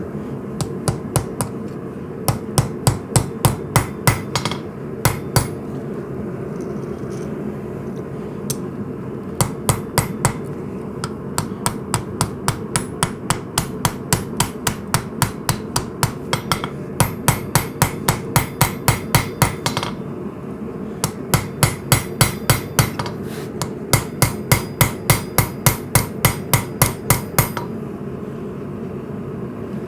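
Hammer striking hot coil-spring steel on an anvil, hand-forging a knife bolster. The blows come in runs of about three a second with short pauses between them, over a steady hum.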